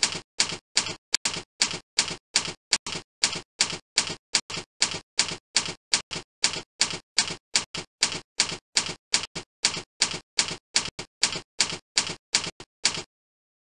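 Typing sound effect: an even run of keystroke clicks, about three a second, stopping near the end.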